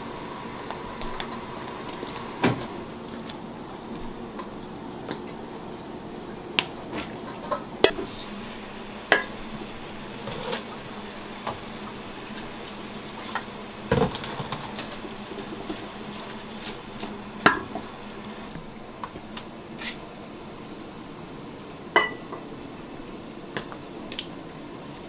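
Kitchen clatter: dishes, pots and utensils clinking and knocking at irregular moments, a few strikes ringing briefly, over a steady low hum.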